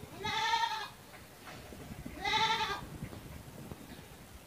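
Two short, wavering animal calls about two seconds apart, each lasting about half a second.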